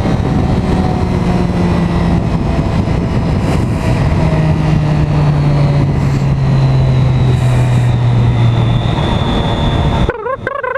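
Motorcycle engine running under way, with a rush of wind noise. The engine note falls slowly from about four seconds in. Near the end the engine sound drops out briefly behind a short snatch of wavering voice-like sound.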